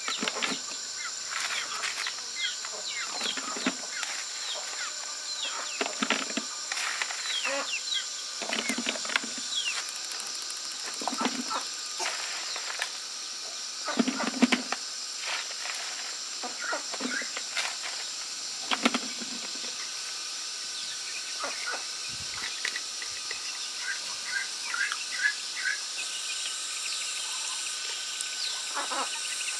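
Outdoor rural ambience: small birds chirping in short falling notes over a steady high insect drone, with a few louder short animal calls now and then.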